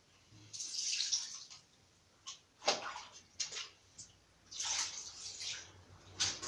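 Wet washing of a fan guard with water and detergent: irregular scrubbing strokes and splashing water, some long swishes and some short sharp ones.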